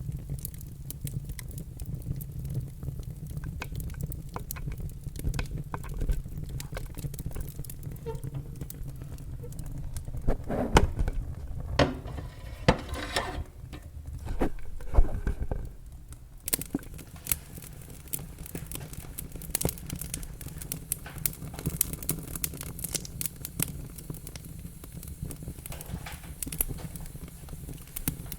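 Wood fire burning in a fireplace: steady crackling with many sharp pops over a low rumble, growing louder and busier for a few seconds around the middle with hissing.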